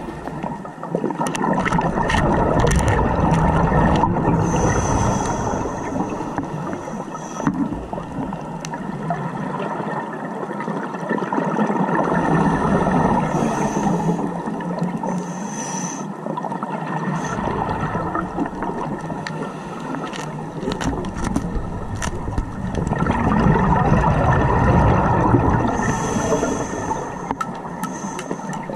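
Underwater sound heard through a GoPro housing: a scuba diver's exhaled air bubbling and gurgling, rising and falling in long swells, with scattered faint clicks.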